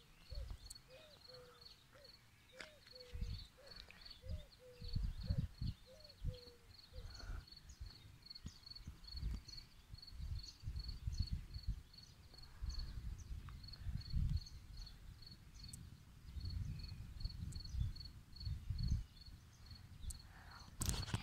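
Outdoor ambience under a gathering storm. Irregular low rumbling gusts of wind buffet the microphone, and a steady high chirp repeats about three times a second. In the first several seconds a lower call repeats about twice a second.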